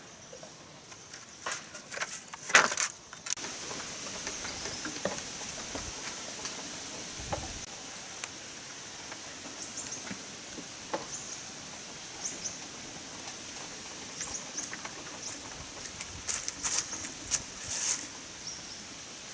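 A steady high-pitched insect drone that sets in a few seconds in, with scattered clicks, knocks and rustles of handling, the loudest a sharp knock about two and a half seconds in.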